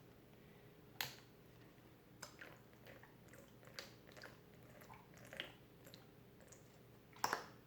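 Faint, scattered wet squelches and clicks of homemade glue slime being kneaded by hand, with a sharper click about a second in and another pair near the end.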